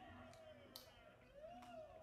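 A faint, drawn-out human voice, one held sound whose pitch slides down, rises again and then holds steady.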